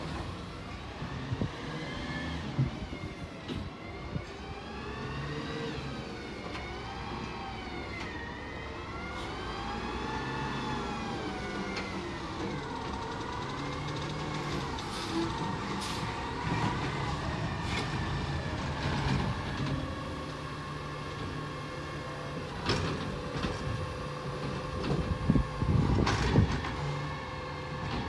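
McNeilus ZR automated side-loader garbage truck running on its Crane Carrier LET2 chassis, its engine note rising and falling several times as it works up the street. Near the end come a run of clanks and knocks as its arm grabs and lifts a green-waste cart.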